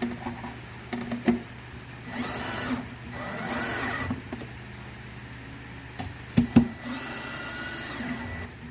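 Electric drill driving screws into solid wood: two short runs about two seconds in, then a longer run near the end, its speed rising and falling. Sharp knocks of wood and tool being handled in between.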